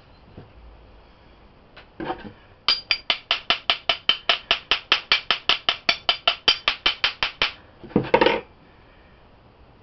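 Stainless steel sphere bath-bomb mold being tapped rapidly, about five light, ringing metal taps a second for some five seconds, the usual way to loosen the packed bomb inside. A short scrape comes before the taps, and a louder scraping rustle comes just after them.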